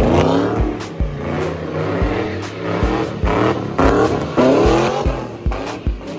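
A car engine revving hard, its pitch climbing and falling several times, over music with a steady thumping bass beat.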